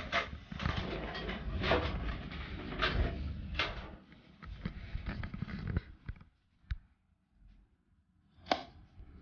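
Handling noise: rustling with several sharp knocks and clacks for about the first six seconds, then quieter with two single clicks near the end.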